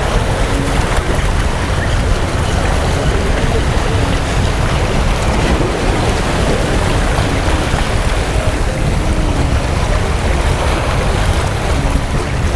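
Wind buffeting the microphone over surf washing against shoreline rocks: a loud, steady rush that is strongest in the low end.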